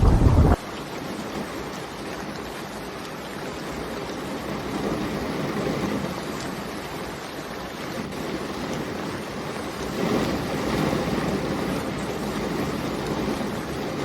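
Steady rain, an even hiss without distinct drops, swelling gently now and then. At the start a louder, deeper rumble stops abruptly about half a second in.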